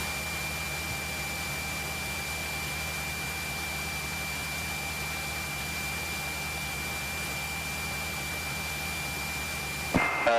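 Cessna 172's piston engine idling steadily on the ground, heard through the cockpit intercom as an even hum with a thin, steady high-pitched whine over it.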